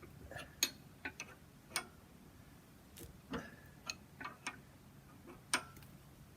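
Irregular sharp metallic clicks and taps, about a dozen, as a hand tool tightens the threaded fitting on the excavator's track tensioner.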